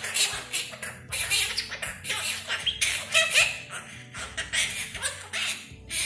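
Quaker parrots (monk parakeets) chattering and squawking, a fast run of short, harsh calls several times a second with brief pauses.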